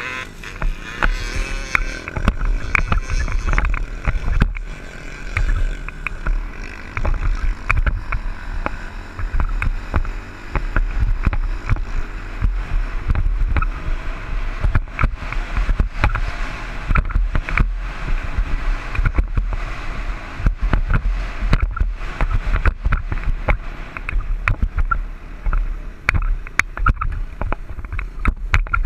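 Dirt bike engine running at speed while riding over sand, with heavy wind buffeting on the helmet camera's microphone and frequent sharp knocks.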